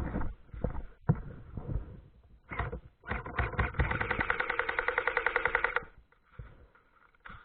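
Airsoft electric gun firing a full-auto burst of about two seconds: rapid, evenly spaced clicks over the whine of the gearbox motor. Scattered knocks and clicks come before it.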